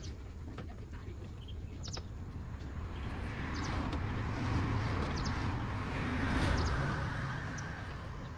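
A vehicle passing by: a broad rumble and road noise that swells from about three seconds in, peaks near the end and fades, with a few short bird chirps.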